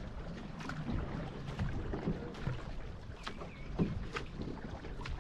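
Paddle strokes of a two-person racing canoe: the blades catch and splash in the river every second or so, over a steady low rush of water and wind.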